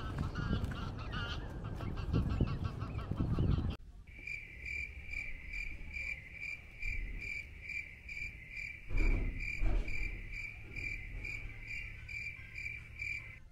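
Geese honking by the water, with wind and outdoor noise, for the first few seconds. After a sudden cut comes a steady high cricket-like chirping that pulses a little over twice a second, with a couple of soft thumps midway.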